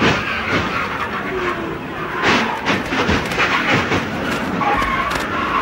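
In-car sound of a stock car crashing: a loud engine and road roar inside the cockpit, broken from about two seconds in by a run of hard bangs and clattering as the car is knocked about.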